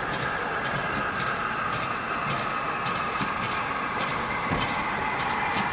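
Steam locomotive running slowly into a station, with a steady hiss of steam and sharp clicks at irregular intervals as its wheels cross the rail joints.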